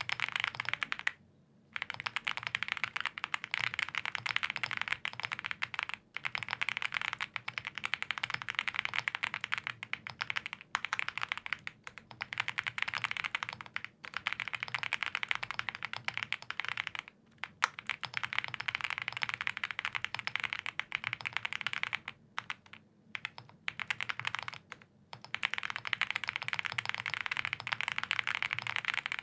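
Fast continuous typing on a custom mechanical keyboard with lubed Gazzew Boba U4T tactile switches on a POM plate and GMK Klassiker keycaps, a dense run of key clacks with a few short pauses.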